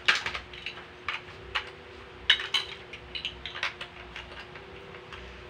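Large plastic Lego-style building bricks clicking and clattering as they are handled and pressed together: a string of sharp clicks, the loudest right at the start and again a little over two seconds in.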